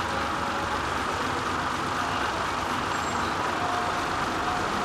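Steady running of a heavy vehicle's engine, a low, even rumble with no change in pace.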